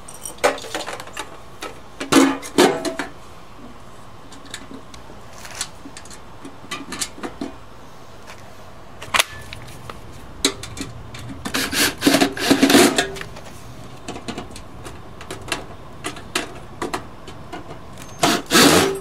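Scattered knocks, clicks and rattles of tools and steel parts being handled while assembling a small cement mixer, with a busy run of them about twelve seconds in and another near the end.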